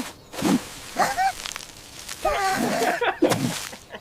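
A cartoon voice making short wordless vocal sounds that bend in pitch, once about a second in and again for a longer stretch in the second half. A brief low thump comes just before the first.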